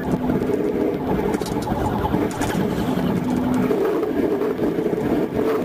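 Police car driving fast on a highway: steady engine and road noise heard from inside the car.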